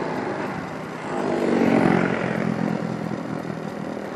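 Motorcycle engine running under a steady rush of wind on the mic while riding, swelling louder for a second or so about a second and a half in.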